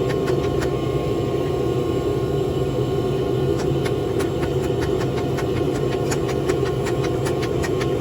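Forging shop equipment running with a steady, loud drone and a few faint scattered ticks.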